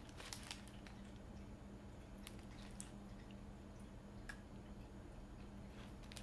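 Faint, crisp clicks of biting and chewing a chocolate-coated Pocky biscuit stick, scattered a few at a time over a low steady hum.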